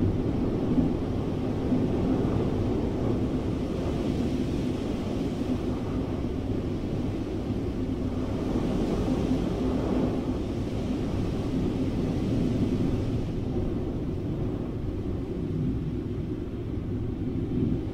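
Steady low rumble of rushing air, even in level throughout.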